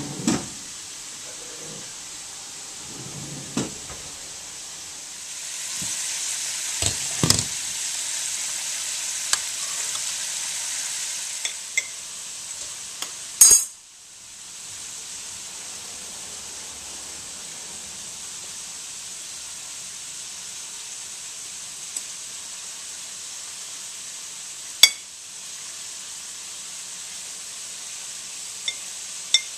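Kitchen handling sounds over a steady sizzling hiss: a knock as a dish is handled at the start, a loud clatter about halfway through, and a few sharp clinks of a knife on a plate while corn is buttered. The hiss grows louder for several seconds about six seconds in.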